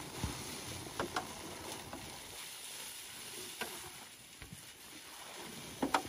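Dry concrete mix being poured around the base of a fence post: a steady granular hiss of falling powder and gravel, with a few light knocks.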